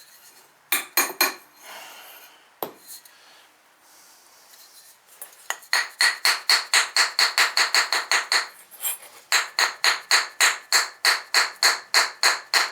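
A few clinks of fired ceramic being handled, then a long run of rapid, even, ringing taps, about five a second, with a short break near the middle.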